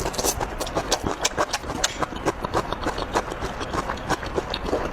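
Close-miked chewing of crisp stir-fried cabbage with pork: quick, irregular wet crunches, several a second.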